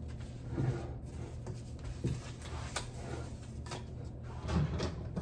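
Faint scattered clicks and light knocks of things being handled, over a steady low hum, with a few louder knocks near the end.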